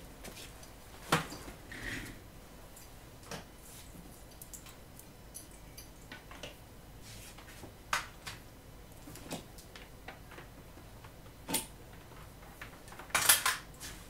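Scattered clicks and knocks of small hard objects being picked up and set down on a workbench, with a louder rattling clatter about a second before the end.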